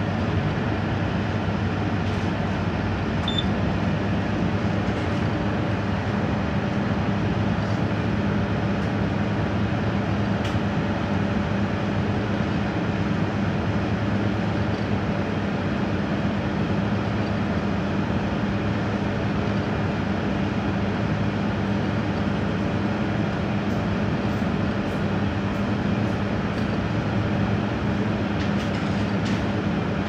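Menumaster Commercial microwave oven running mid-cycle: a steady low hum over an even rushing noise.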